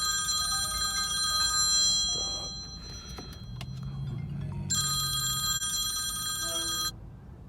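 Phone ringtone ringing twice, each ring a couple of seconds long with a pause between.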